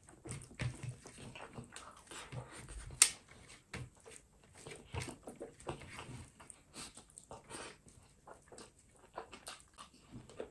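Close-up eating sounds: wet chewing and lip smacking as fingers scrape curry and rice off a metal tray, with one sharp click about three seconds in.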